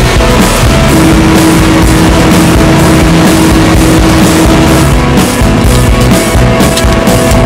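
Loud rock music with guitar and a steady beat.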